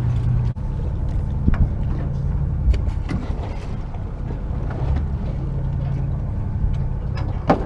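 Charter boat's engine running with a steady low hum, with a few light clicks and knocks scattered over it.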